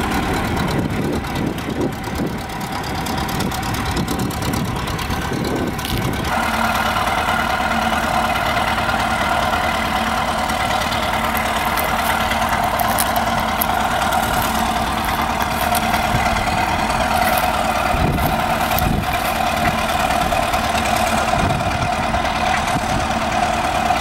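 Caterpillar D7 crawler bulldozer's diesel engine running as the machine drives across the field; about six seconds in the sound settles into a steady, even hum.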